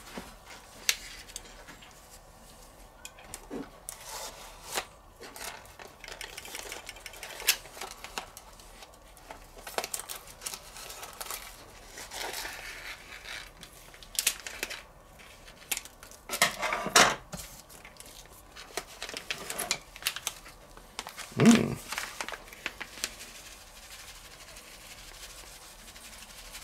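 Kitchen handling noises: a plastic spice bag rustling and being snipped open with scissors, scattered light clicks and knocks, and near the end gyros spice shaken from the bag onto raw chicken strips in a steel bowl. Two louder noises stand out, about 17 and 21 seconds in, the second a dull thump.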